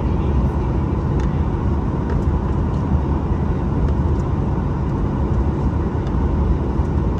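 Cabin noise inside a Boeing 737-900ER taxiing: a steady low rumble from its CFM56-7B engines at taxi power and the rolling airframe, with a faint steady whine and a few light clicks.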